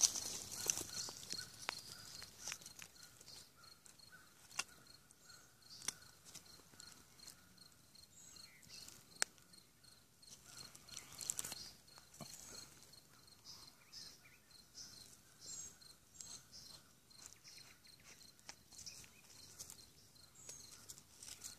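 Faint outdoor ambience: an insect chirping in an even pulse, a few times a second, with occasional short high bird chirps and scattered light ticks and rustles in dry leaf litter.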